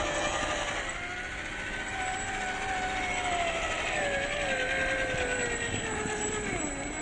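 Scale RC crawler truck's electric motor and gears whining as it drives. The pitch steps up about two seconds in, then slides steadily down over the last few seconds as the truck slows.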